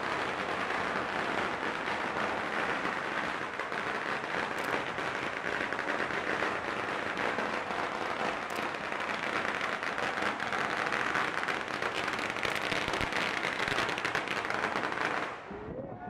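Dense, rapid crackling of firecrackers going off continuously, stopping abruptly near the end.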